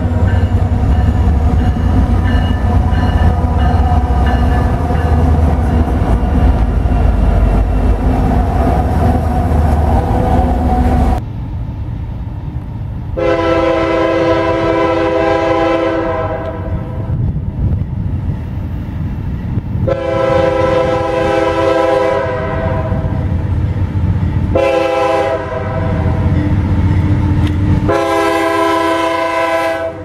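Diesel freight locomotives passing close by, with loud, steady engine and wheel-on-rail noise. About halfway through, a CSX locomotive's multi-chime air horn sounds the grade-crossing signal: two long blasts, one short, then a final long blast.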